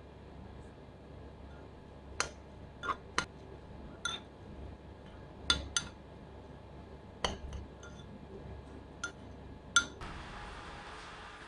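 Metal spoon clinking against a ceramic bowl while stirring chopped shallots, chilies and ginger, about ten sharp, ringing clinks at uneven intervals.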